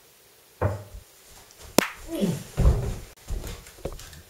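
Several thumps and knocks, one sharp click, and a short falling vocal cry, as in a brief scuffle and something dropped on a carpeted floor.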